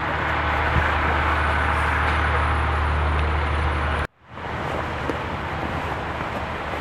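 A road vehicle's engine running steadily, with a strong low hum over outdoor traffic noise. About four seconds in the sound cuts out abruptly for a moment, then returns quieter, without the hum.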